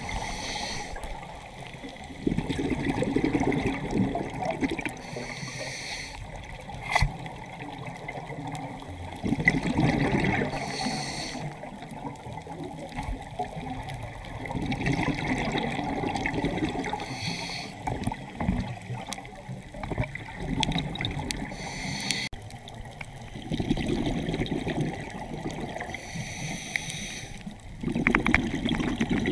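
Water sloshing and trickling, swelling and fading every few seconds, with a single sharp click about seven seconds in.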